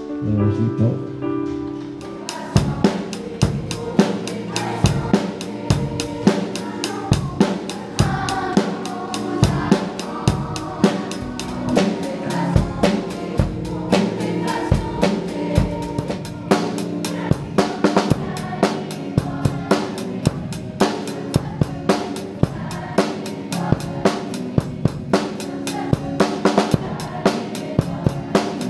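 A rock band of drum kit, bass guitar, electric guitar and keyboard playing a song with a steady beat, the drums coming in about two seconds in, with a children's choir singing along.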